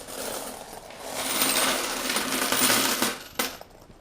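A pile of loose coins clattering, pouring and jingling together for about two seconds, then stopping.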